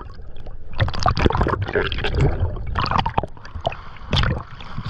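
Water gurgling and sloshing around an action camera moving underwater, in irregular bursts, with a sharper splash just after four seconds as the camera reaches the surface.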